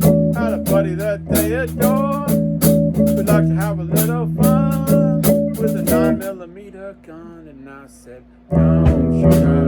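Guitar-and-bass band music with a singing voice over it. It thins out and drops quieter about six seconds in, then the full band comes back in abruptly near the end.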